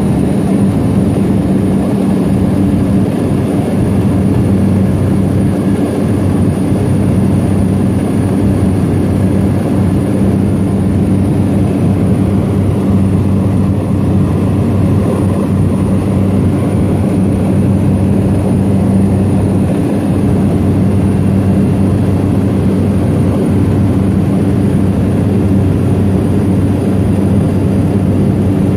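Floatplane's engine and propeller drone steadily in cruise flight, heard from inside the cabin, with a faint steady high whine over the low hum.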